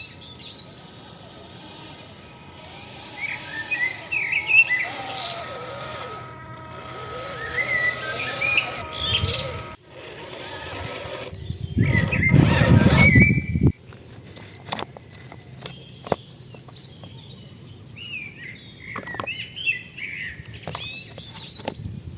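Birds chirping, with a faint steady whine in the first half. About twelve seconds in, a loud rush of noise lasts a second and a half.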